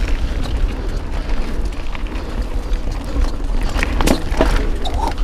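Mountain bike rolling along a dirt trail, with wind rushing over the camera microphone and the tyres rumbling. A few sharp knocks from the bike come about four seconds in, followed by a brief squeak.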